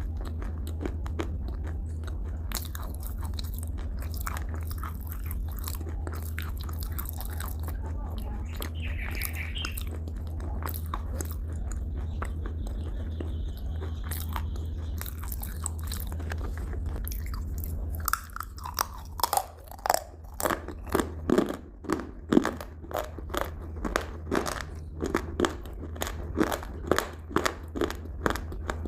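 Close-miked crunchy food being bitten and chewed: soft scattered clicks at first, then from about two-thirds of the way in a quick run of loud, crisp crunches, several a second. A steady low hum sits underneath.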